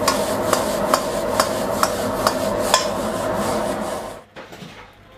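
A metal utensil strikes and scrapes a wok about twice a second as rice is stir-fried over the steady rush of a high gas flame. The strikes stop near three seconds in, and the flame noise ends about a second later, leaving a much quieter stretch.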